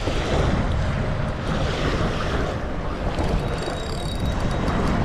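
Wind buffeting the microphone over a steady wash of waves.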